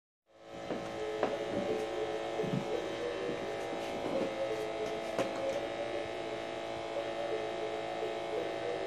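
Baby bouncer seat's vibration motor buzzing steadily, with a few faint clicks and knocks over the hum.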